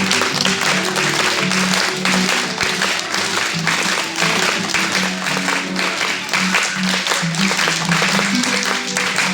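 Instrumental interlude of a gato cuyano, an Argentine folk dance tune, played on guitars: a steady strummed rhythm over a stepping bass line.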